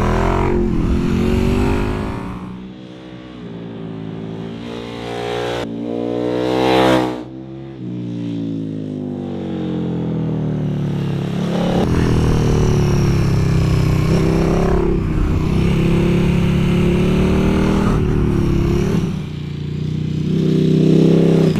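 KTM 1290 Super Duke R Evo's V-twin engine, fitted with a titanium full-system exhaust, ridden hard through corners: the engine note falls under braking and climbs again under acceleration several times. There is a sudden drop in pitch about seven seconds in, and a long high, steady run in the middle.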